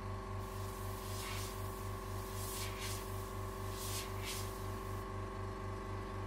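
Airbrush spraying paint with a steady hiss for a few seconds, with several short louder puffs of air as the trigger is worked. Underneath runs a steady hum with a low pulse about four times a second.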